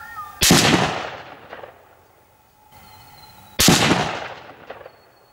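Two shots from a Lithgow LA102 bolt-action rifle in .243 Winchester, about three seconds apart. Each is a sharp crack with a long echoing tail and a fainter echo about a second later.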